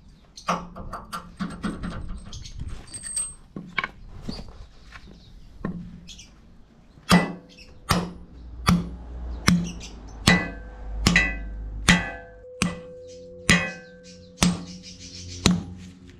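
A club hammer pounds a steel anchor bolt through a car hoist post's base plate into the concrete floor. Lighter metal clinks and taps come first, then from about seven seconds in there are about ten heavy, evenly paced blows, roughly one every 0.8 s, and the later blows leave a ringing note.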